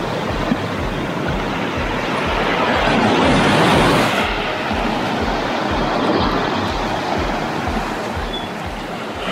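Small sea waves breaking and washing up a sandy shore, swelling to a louder wash about three to four seconds in, with wind noise on the microphone. Under it runs a regular low thudding, about three a second.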